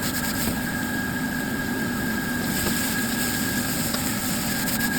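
Steady roar of a gas wok burner under a hot wok, with vegetables, garlic and ginger sizzling in oil, and a few faint clicks near the start and end.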